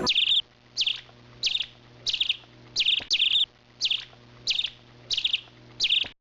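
A small bird chirping over and over in a steady rhythm, about two short calls a second, cutting off suddenly near the end.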